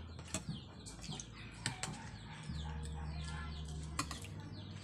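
Birds chirping over and over in short falling chirps, with a few sharp clinks of spoons on plates and a low steady hum underneath.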